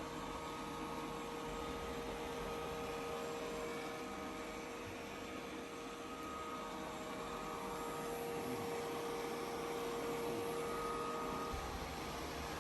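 Experobot robot vacuum running: a steady motor hum with a faint whine over the noise of its fan.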